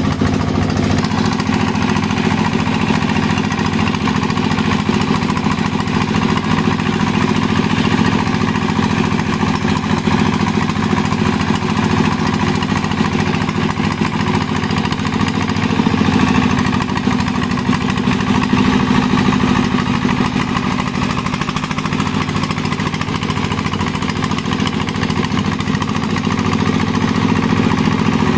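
Công nông farm truck's single-cylinder diesel engine idling steadily.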